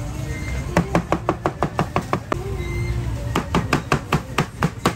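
Rapid chopping with a knife on a cutting board, about six or seven strokes a second, in two runs with a short pause in between.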